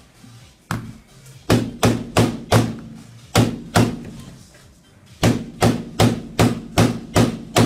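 Claw hammer striking an iPhone 6 Plus screen fitted with a protective film, about fourteen sharp blows: an uneven flurry, then from about five seconds in a steady run of about two and a half blows a second.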